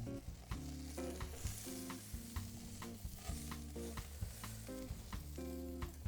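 Steak sizzling on a gas grill, with background music carrying stepping notes over a regular beat.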